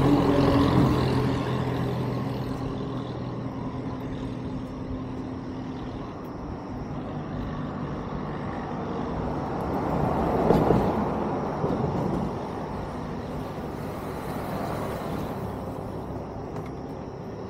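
A bus passing on a road bridge, its engine loud at first and fading away over the first few seconds. Traffic noise then swells and dies again about ten seconds in.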